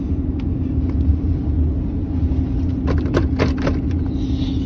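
Steady low rumble and hum inside a car's cabin, with four short sharp clicks or smacks in quick succession about three seconds in.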